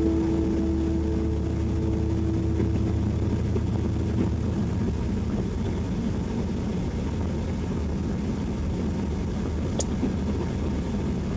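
Steady engine and road noise heard from inside a vehicle driving along a city street, with a single short click about ten seconds in.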